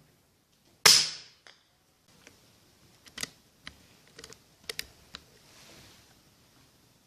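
A single shot from a Kalibrgun Cricket 5.5 mm PCP air rifle about a second in: one sharp crack that dies away quickly, with a faint short knock about half a second later. A run of light mechanical clicks follows over the next few seconds.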